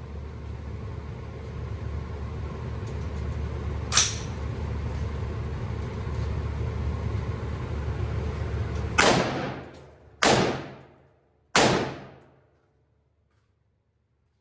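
A steady low rumble with a single sharp click about four seconds in, then three loud gunshots about a second and a half apart, each ringing off over about a second.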